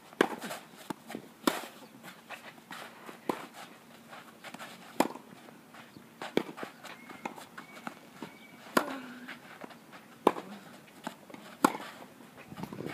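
Tennis rally on a clay court: the ball struck back and forth by rackets, about eight sharp pocks, one every second and a half or so, with fainter bounces and footsteps on the clay between shots.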